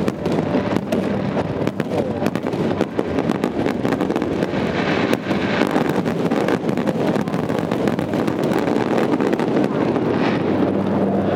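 Fireworks display: a dense, continuous barrage of bangs and crackles, many bursts a second, with no pause.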